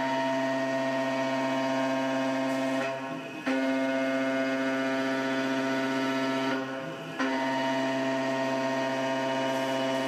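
CNC gantry mill face-milling aluminium with a 3/8-inch two-flute carbide end mill spinning at 8000 rpm under flood coolant, on a 0.045-inch-deep roughing pass. It makes a loud, steady whine with many overtones. The whine drops away twice, about three seconds in and again near seven seconds, and each time jumps back as the cutter leaves and re-enters the stock at the end of a pass.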